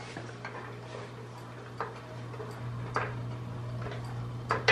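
A handful of sparse, light metallic clicks and taps as a tubular rear subframe on a jack is worked into place under the car, the loudest near the end, over a steady low hum.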